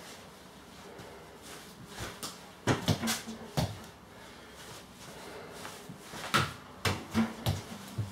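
Irregular sharp slaps and knocks from a person moving and stepping about on a laminate floor in rubber clogs, a few about three seconds in and a quicker run from about six seconds in.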